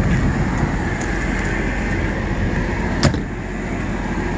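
Steady drone of the parked specialty vehicle running, with a single sharp click about three seconds in.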